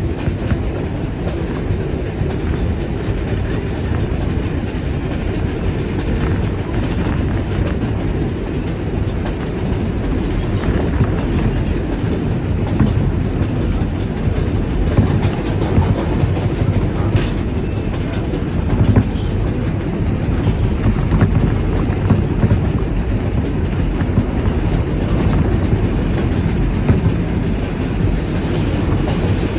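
Train running steadily along the rails: a continuous loud rumble with rattling clickety-clack of wheels over rail joints. A brief sharp click or squeak stands out about seventeen seconds in.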